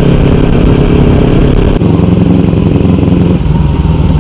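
Kawasaki Ninja 300's parallel-twin engine running as the motorcycle is ridden; the engine note changes about halfway through.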